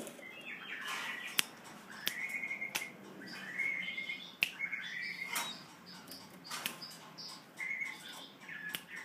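Oriental magpie-robin giving short chirping calls again and again, with a few sharp clicks in between.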